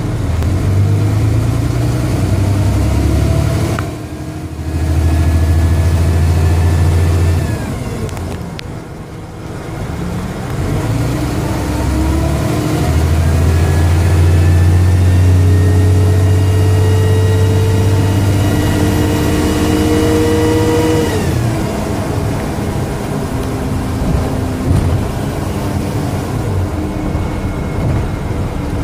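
Dennis Trident double-decker bus with a Voith automatic gearbox accelerating in two long pulls, the second the longer, its engine loud. Each pull carries a whine that rises in pitch as the bus gathers speed and falls away when the power comes off, a loud whine the uploader puts down to a bad turbo.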